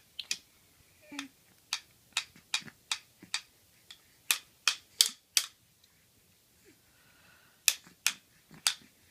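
A toy hammer tapping toy nails into toy wood pieces: a string of sharp, irregular taps, stopping for about two seconds before three more near the end.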